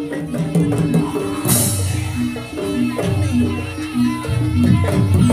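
Live jaranan gamelan music: tuned struck notes repeating in a steady pattern over a low drum beat, with a bright crash about a second and a half in.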